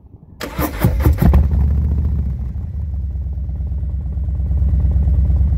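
Harley-Davidson Fat Boy 114's Milwaukee-Eight 114 V-twin started through Vance & Hines Eliminator 300 slip-on mufflers: the starter cranks about half a second in, the engine catches after about a second, then settles into a steady, low, deep idle.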